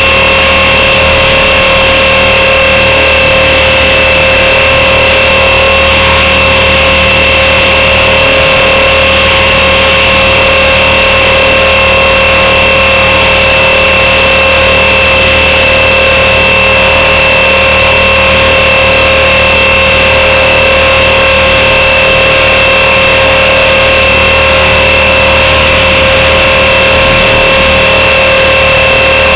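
Blade 400 electric RC helicopter's motor and rotors heard close up from the onboard camera: a loud, steady whine that holds its pitch.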